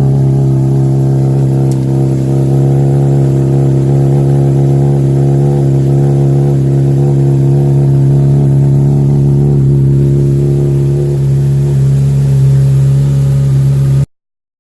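An engine running steadily at a constant speed, with an unchanging hum, that cuts off suddenly near the end.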